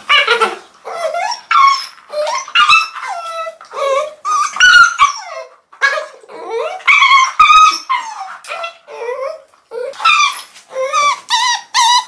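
Puppies whining and yelping over and over in high cries that rise and fall in pitch, the distressed cries of a puppy caught in rough play with its littermates and mother.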